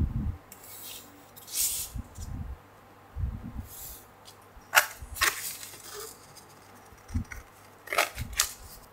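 Sheets of 600-grit sandpaper handled on a table: paper rustling, soft knocks and a few sharp scrapes as a plastic template is laid on and marked along, then scissors snipping into the sandpaper twice near the end.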